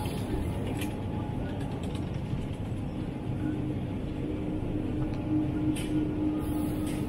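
Ambient noise inside a big retail store: a steady low rumble with a steady hum that comes in about three seconds in, and a few light clicks.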